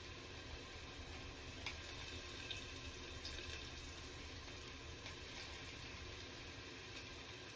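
Faint, steady sizzle of potatoes frying in oil in a pan, with small scattered crackles and one sharper click about a second and a half in.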